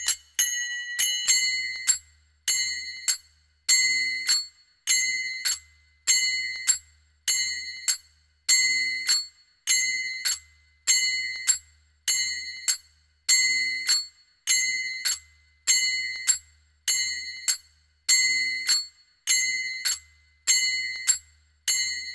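Manjira, small Indian hand cymbals, struck together in a steady looped rhythm at 100 beats a minute. Each clash rings with a bright, metallic tone that dies away before the next.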